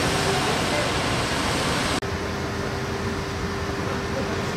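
Steady mechanical drone of fire-apparatus engines and the lighting truck's generator running. About two seconds in an abrupt edit switches to a slightly quieter drone carrying a steady low hum.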